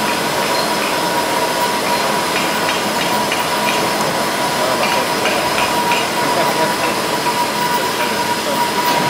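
GZK4240 double-column automatic bandsaw cutting through a bundle of square steel bars: a steady hiss of blade on metal with a constant whining tone over it.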